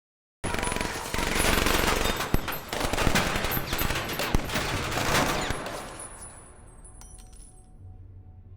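Film soundtrack of rapid gunfire: a dense run of shots that starts abruptly and dies away about six seconds in, leaving a faint low hum.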